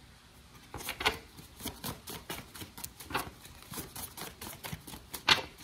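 Cards being handled on a hard tabletop: an irregular run of light clicks and taps, the sharpest one near the end.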